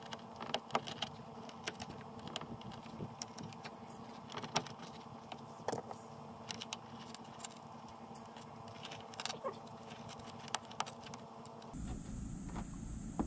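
Faint, irregular clicks and scratches of a small hand cutting tool piercing and snipping a hole in a car's fabric-covered headliner, over a faint steady hum.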